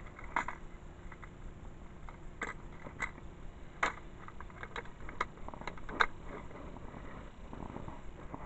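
Irregular clicks and light plastic knocks from a clear plastic compartment tackle box of fishing lures being handled and its lid shut and latched, the loudest about six seconds in.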